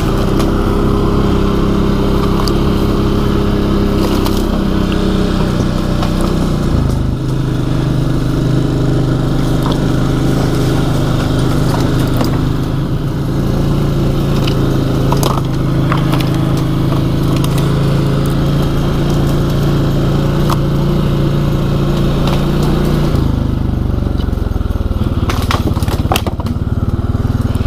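Can-Am Outlander Pro HD7 ATV engine running at low speed, its note changing about seven seconds in and again near the end as it works through brush. Scattered sharp cracks and scrapes of branches hitting and breaking against the machine.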